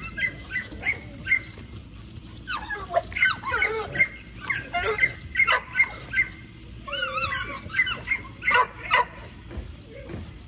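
American pit bull terrier yipping and whining, eager for a rope toy. Short high yips come about three a second at the start and again near the end, with longer whines in the middle that bend up and down in pitch.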